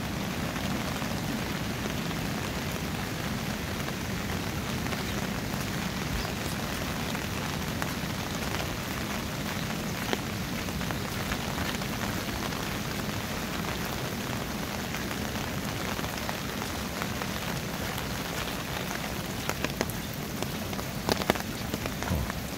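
Steady rain falling, with a few sharper drop hits near the end.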